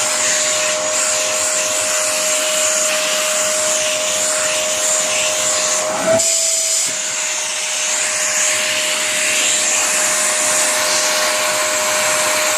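Vacuum cleaner running with a steady motor whine and rushing air. About halfway through, its pitch rises briefly and the low rumble drops away for a moment before it settles back.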